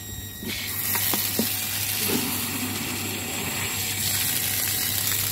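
Filtered water pouring from an opened tap outlet and splashing into a plastic water tank: a steady rushing hiss that starts about half a second in.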